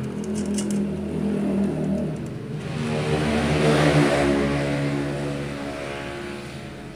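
Engine of a passing motor vehicle: it swells to its loudest about four seconds in and then fades away.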